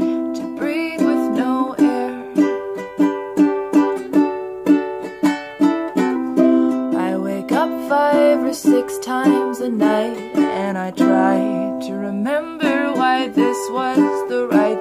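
Ukulele strummed in a steady rhythm of chords, with a woman singing along.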